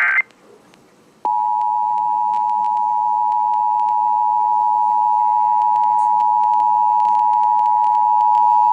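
The last fraction of an Emergency Alert System SAME header data burst, a shrill warbling digital squawk. After a second's pause the EAS two-tone attention signal (853 Hz and 960 Hz together) comes in and holds at a steady level, announcing the monthly test message.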